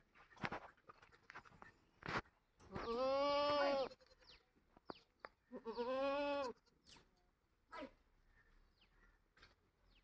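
A farm animal calling twice: two long, high, bleating calls, the first a little over a second long and the second shorter, a couple of seconds apart. A few short knocks fall around them.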